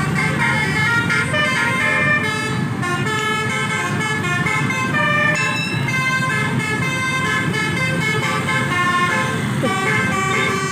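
Telolet basuri multi-tone horn playing a quick melody, its notes stepping from pitch to pitch several times a second, over a steady low rumble.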